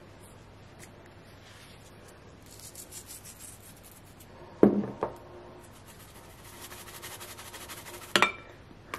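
Hand-turned spice mill grinding salt and pepper: a fast run of fine rasping clicks starting about two and a half seconds in. Two sharper knocks come about halfway through and near the end.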